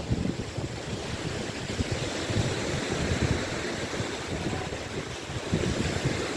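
Waves washing on the shore, with wind gusting on the microphone.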